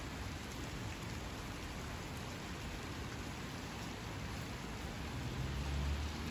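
Steady rain falling on water and grass, an even hiss, with a low rumble swelling near the end.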